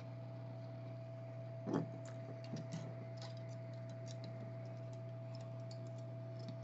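Hot-air rework gun running with a steady hum while its small nozzle is worked off: scattered light clicks and taps, with one louder knock about two seconds in.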